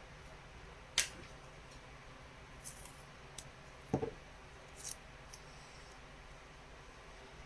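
Small pieces of electrical tape being pulled from the roll and pressed onto paper: a few short sharp snips and clicks, the loudest about a second in, and a duller thump about four seconds in.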